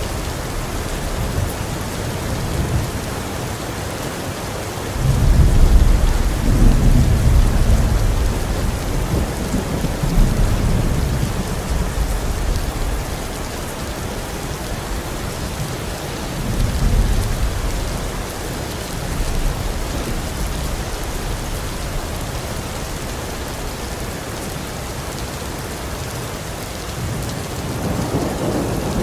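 Heavy rain falling steadily, with rolls of thunder: a loud deep rumble breaks in about five seconds in and rolls on for several seconds, a smaller one follows midway, and another builds near the end.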